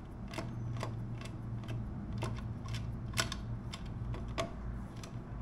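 Sharp metallic clicks, roughly two a second with one louder click a little past three seconds in, as metal parts and hand tools are fitted while lining up the motorcycle's sprocket cover, over a steady low hum.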